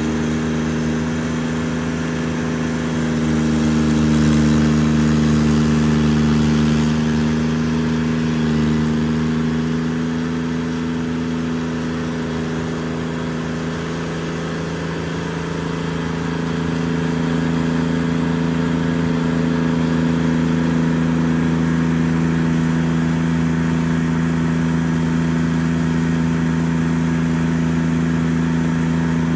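Carlton SP7015 TRX tracked stump grinder running at working speed while its cutter wheel grinds a stump. The engine note sags through the middle as the wheel takes load, then comes back up and holds steady.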